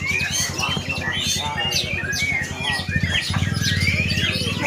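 Many songbirds singing and chirping at once, with fast twittering phrases overlapping one another. Underneath runs a low, rapid throbbing hum that grows louder about three seconds in.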